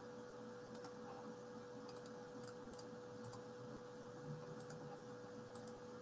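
Faint, scattered clicks from working a computer, several at irregular intervals, over a steady faint hum.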